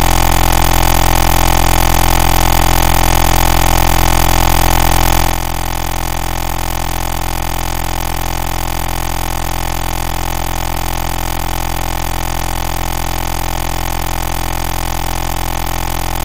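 A steady, unchanging drone of many held tones. It drops to a lower level about five seconds in and then holds steady.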